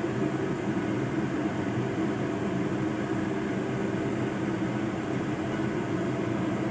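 Steady low whirring drone with the soft noise of stirring as a wooden spatula turns chicken gizzards and liver in thick chili sauce in a nonstick wok.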